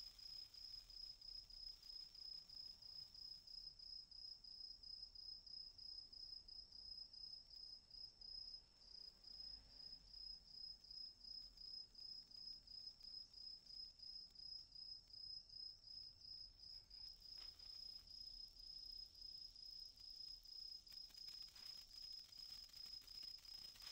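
A cricket chirping faintly and steadily in the night, a high pulsing tone at about two to three chirps a second. A few faint crackles near the end come as the sparkler bead starts to throw sparks.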